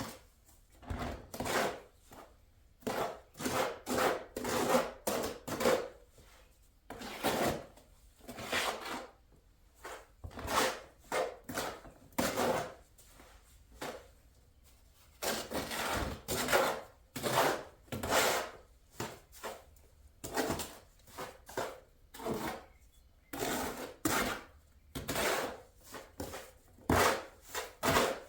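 Mortar being mixed by hand: repeated scraping strokes of a tool dragged through stiff sand and mortar mix, coming in irregular bursts about one to two a second with short pauses.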